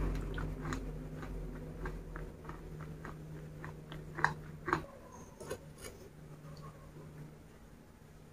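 Close-miked chewing with small wet mouth clicks, a mouthful of soft dessert being eaten; two louder clicks come about four and a half seconds in, and the sounds thin out towards the end. A faint low hum lies underneath.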